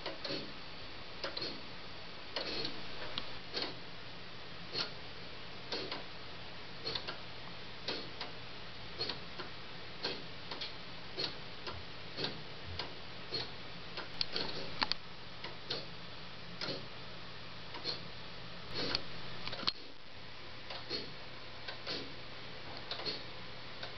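A 3D-printed plastic pendulum clock ticking steadily, about one tick a second, as its escapement lets the gear train advance.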